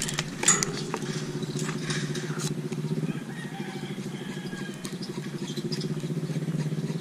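A small engine running steadily with a fast low pulse. A few sharp clicks and rattles come about half a second in.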